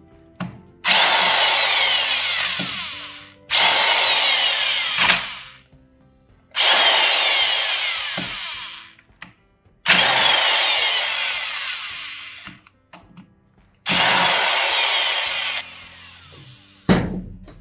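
Hand-held electric power tool run against the bolts of a screw compressor's regulator housing in five bursts of two to three seconds, each winding down with a falling whine. A single sharp thump near the end.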